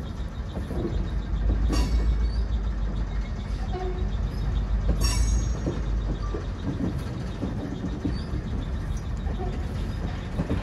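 A train on the move, with heavy low noise that swells from about one and a half to five and a half seconds in. Two sharp clanks come about two and five seconds in.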